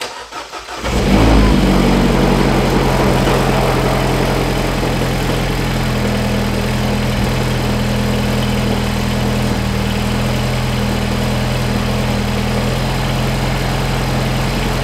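Mini Cooper S 1.6-litre turbocharged four-cylinder engine starting. It catches about a second in, flares briefly, then settles into a steady idle. It is being run just after an oil change so the fresh oil circulates and fills the new filter.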